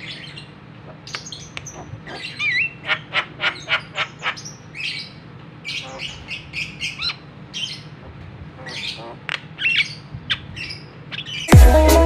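Javan myna (jalak kebo) calling: a string of harsh squawks, quick chattering runs of notes and a few short whistles. Loud electronic music cuts in suddenly half a second before the end.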